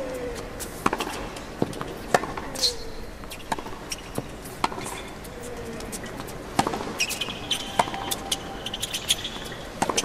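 Tennis rally on a hard court: sharp racket-on-ball strikes and ball bounces, about one every second and a half.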